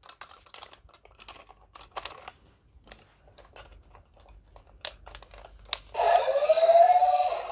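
A battery-powered plastic toy robot being handled: scattered plastic clicks and rattles as its battery compartment is worked. About six seconds in, the toy switches on and plays a loud electronic sound with a wavering pitch from its speaker.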